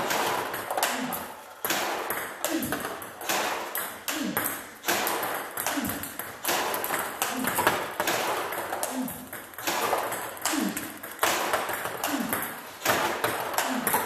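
A table tennis drill against a ball-feeding robot: repeated sharp clicks of the plastic ball at an even pace, as it strikes the Victas ZX-Gear blade and bounces on the table. The robot is feeding underspin balls.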